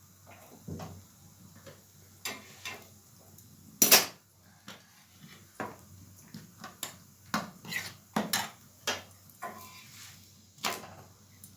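Metal spatula clinking, knocking and scraping against an iron tawa while a paratha is lifted and checked on it: a run of irregular sharp clinks, the loudest about four seconds in, with a quick cluster of them later on.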